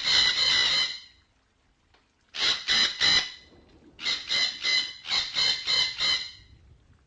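Red-breasted parakeets giving harsh, rapidly repeated squawking calls, the flock-calling of the species. They come in three runs of several notes each, separated by short pauses.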